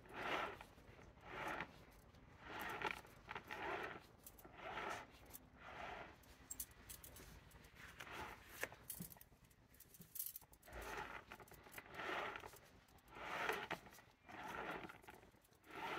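Bonsai wire being coiled up a larch trunk while the potted tree is turned: a steady run of short scraping rustles, about one a second, as the wire wraps on and the pot is spun.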